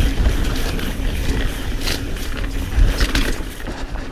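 Mountain bike ridden over a dirt trail: wind buffeting the on-bike microphone, tyres rolling on dirt, and the chain and bike parts rattling and ticking over bumps.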